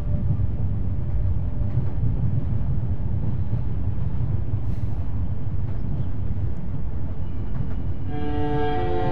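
Steady low rumble of a train on the rails. Music notes come in near the end.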